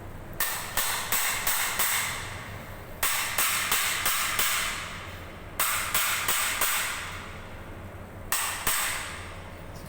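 Hammer blows on the seized motor of an industrial vacuum cleaner, knocking it to work it loose: four runs of quick, ringing strikes, about three a second, the last run only two strikes.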